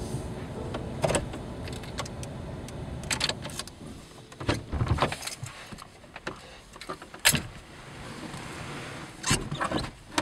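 Inside a Dodge pickup's cab: a low engine rumble that drops away about four seconds in, with a scattering of sharp clicks, clunks and key jangles as the truck is shut down and left.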